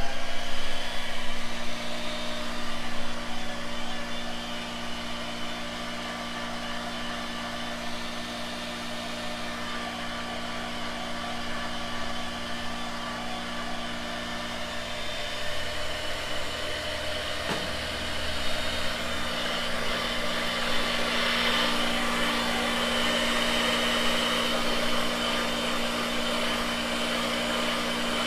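Electric hand mixer running steadily, its beaters churning casting investment (plaster-silica powder) and water in a bowl, with a steady motor whine and one short click about two-thirds of the way through.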